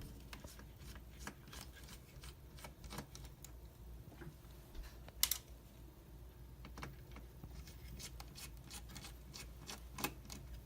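Faint scattered clicks and light scraping of a hand screwdriver backing out the screen hinge screws of an HP Pavilion G7 laptop, with a sharper click about five seconds in and another near the end.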